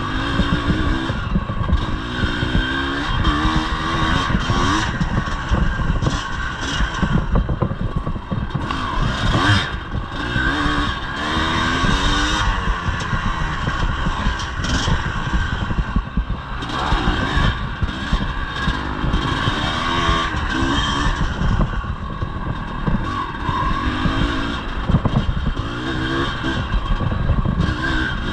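Yamaha IT 250 two-stroke single-cylinder dirt bike engine revving up and dropping back again and again as it is ridden hard over rough ground. A steady rough rattle and knocking runs underneath.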